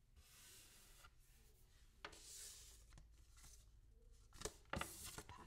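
Faint rustling of hands moving and handling items on a shelf, with a few light clicks and taps near the end.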